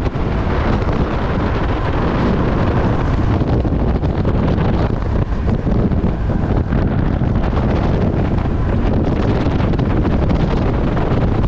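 Wind buffeting the camera microphone on an open-top safari jeep driving at speed, over the jeep's engine and road noise; loud and steady throughout.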